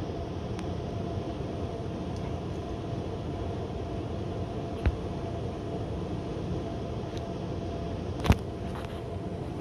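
Hotel air-conditioning unit running with a steady low drone and a faint hum, heard through a camera sitting on top of the unit. Two short sharp knocks cut through it, about five seconds in and a louder one about eight seconds in.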